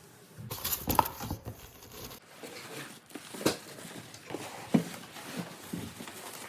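Handling noise from a patio umbrella being set up: a burst of rustling followed by a few sharp clacks and knocks.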